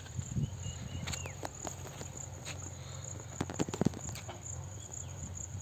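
Footsteps and rustling of moringa leaves and stems as someone walks between the plants, with a cluster of sharp snaps and clicks about three and a half seconds in. Underneath runs a steady high insect drone.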